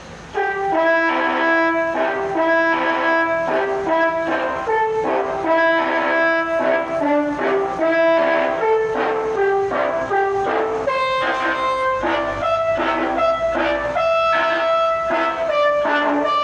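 Music: a brass-like melody of held notes over a steady beat.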